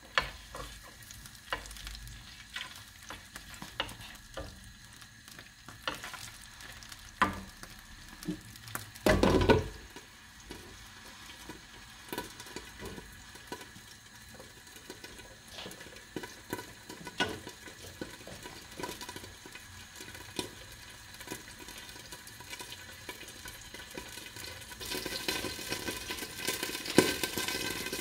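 Food sizzling in a frying pan while a utensil stirs it, with scattered clicks and scrapes against the pan and one louder clatter about nine seconds in. The sizzling grows louder a few seconds before the end.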